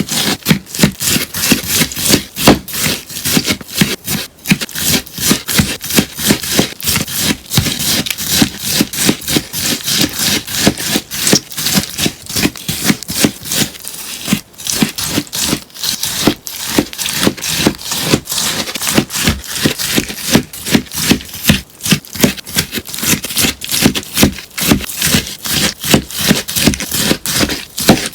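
Slime full of melamine-sponge cubes being cut again and again, a crisp crunching cut a few times a second.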